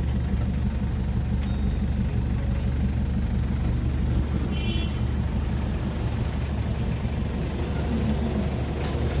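A motor vehicle running steadily, a low continuous rumble of engine and road noise, with a brief faint high chirp about halfway.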